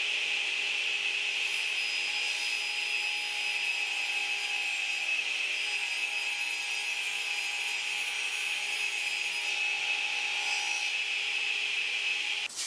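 Radial arm saw ripping a board lengthwise, its blade running steadily through the wood with an even, high-pitched whine. The sound stops abruptly near the end.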